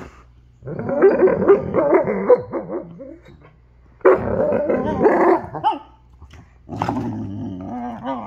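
Alaskan malamutes play-talking: growly, wavering dog vocalisations in three drawn-out bouts of about two seconds each, with short pauses between.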